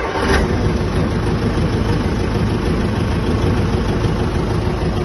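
Diesel engine of a 1995 Case 1845 skid steer running at a steady idle, just after being started with the key.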